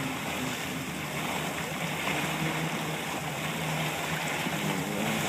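Steady rush of water past the hull of a moving boat, with wind, over a faint low steady hum.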